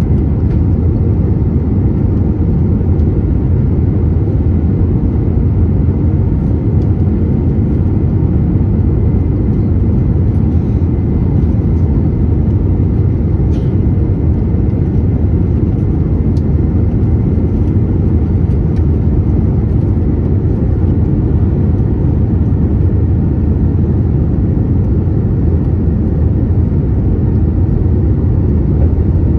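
Steady low rumble of engine and airflow noise inside the cabin of an Airbus A321neo airliner in flight.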